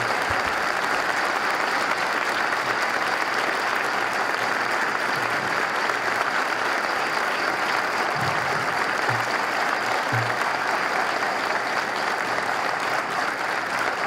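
Large audience applauding steadily, a sustained round of clapping.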